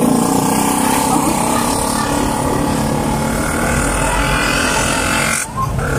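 Steady motor-vehicle engine noise, loud and continuous, dropping away briefly about five and a half seconds in.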